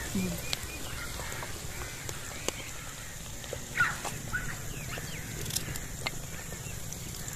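Outdoor background with scattered short bird calls, the loudest about four seconds in, and a few sharp light clicks.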